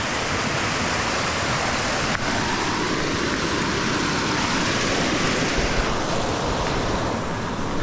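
Steady rushing wind noise over the microphone of a gravel bike rider on the move, with tyre noise from the dirt trail underneath.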